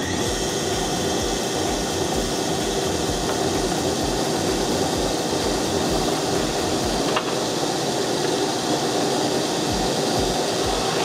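Electric motor running a homemade horizontal mortiser, its drill bit boring into a piece of wood pushed against it by hand: a steady machine noise with the grinding of the cut. A single sharp knock about seven seconds in.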